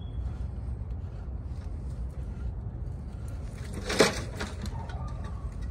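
Knock-off spinner of a gold Dayton wire wheel being worked by hand, with light metallic clicks and one sharp clack about four seconds in, over a steady low rumble.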